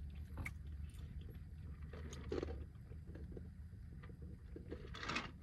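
Quiet room tone: a low steady hum with a few faint, scattered clicks.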